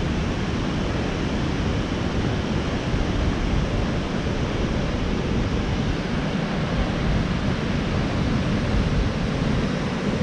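Waterfall: a steady rush of water falling over rock, with no break or change.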